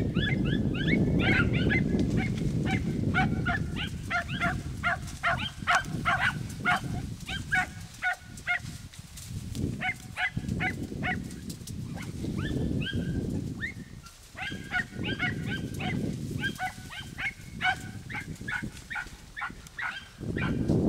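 A pack of Podenco hounds yelping in fast runs of short, high-pitched cries as they give tongue on a rabbit's trail, with brief pauses. A steady low rumble runs underneath.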